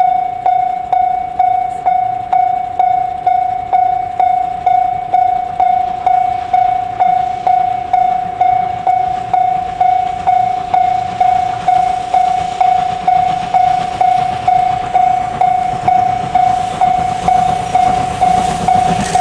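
Railway level-crossing warning bell ringing steadily, about two strokes a second. The approaching steam train of C57 180 and 12-series coaches grows louder as a rising rush from about two-thirds of the way in, reaching the crossing at the very end.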